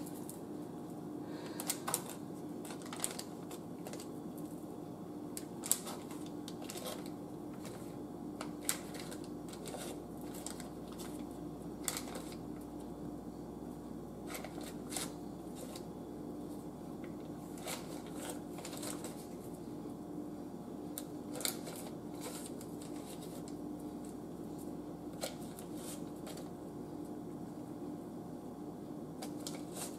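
Knife cutting pats off a stick of butter in its paper wrapper, making scattered light clicks and paper rustles, one every second or so. A steady low hum runs underneath.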